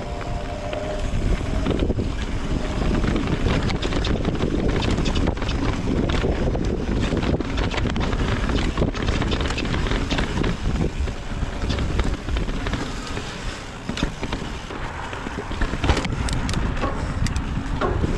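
Wind buffeting the microphone of a mountain bike rider on a dirt trail, with the bike's tyres running over the ground and scattered clicks and knocks as it rattles over rough spots, a cluster of them near the end.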